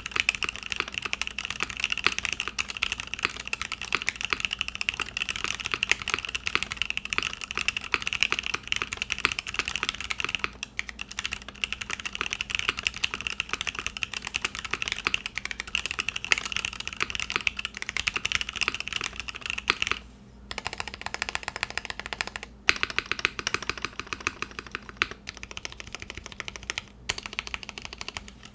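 Mechanical keyboard with linear switches typed on fast and continuously, a dense run of keystroke clacks. Brief breaks come about 10 and 20 seconds in, and after the second one the clacks sound duller, as a different switch is recorded.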